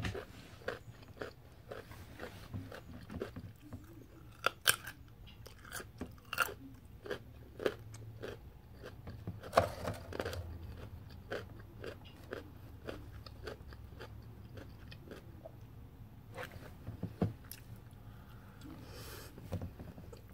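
A person chewing and biting crunchy toasted multigrain bread, with irregular crunches and chewing clicks throughout.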